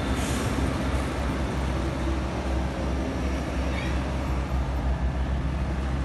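Liugong 906F mini excavator's diesel engine running with a steady low rumble as the machine crawls down a tow truck's loading ramp on its tracks.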